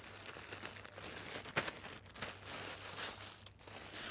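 Plastic bag crinkling and rustling as a folded canopy cover is pulled out of it, with one sharp crackle about a second and a half in.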